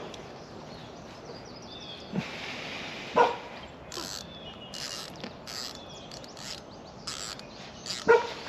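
Birds calling by the water: short high chirps throughout, with two louder, lower calls about three seconds in and near the end. A dull thump about two seconds in and a run of short rustles in between.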